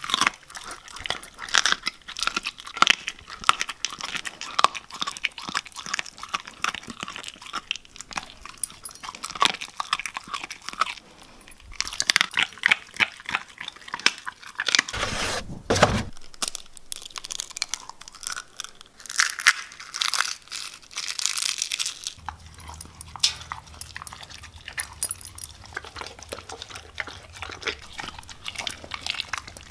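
Siberian husky chewing and crunching raw chicken from a stainless steel bowl, a steady run of irregular wet crunches and bites, with one louder, deeper knock about halfway through.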